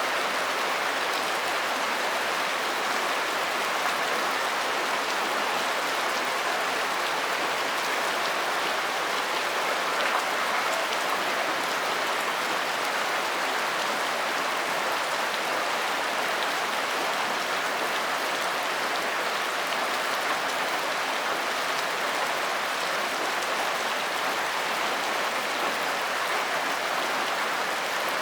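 Steady rain falling, an even hiss of many drops that keeps the same loudness throughout.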